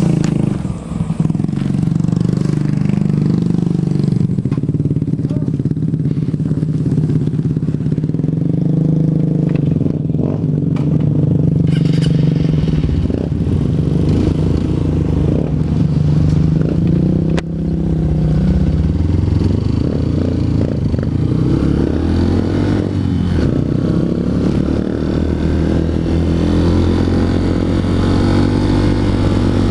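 Honda CRF150L's single-cylinder four-stroke engine running on the move, its note rising and falling with throttle and gear changes. Brief dips in level about a second in and again around the middle.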